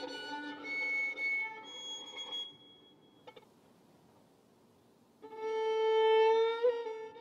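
Bowed violin playing slow, held notes that fade out after about two and a half seconds. A short near-silent pause follows, then a long held note comes in about five seconds in, with small ornaments on it.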